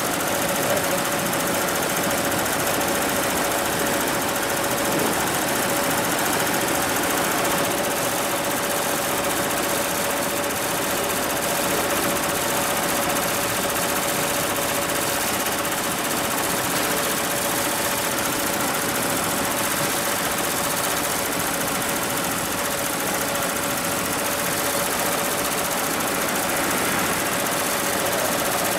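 HIGHTEX 7201 single-head, 12-needle embroidery machine running steadily as it stitches a design into hooped fabric, with a steady tone running throughout.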